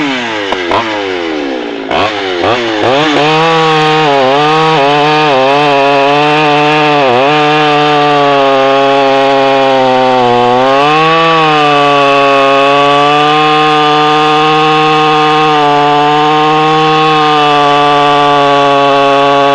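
Vintage Pioneer P51 two-stroke chainsaw cutting through a thick log. The engine note falls sharply at the start, then revs back up and bogs and recovers several times under load. After that it holds a steady high pitch through the cut, with one brief dip about eleven seconds in.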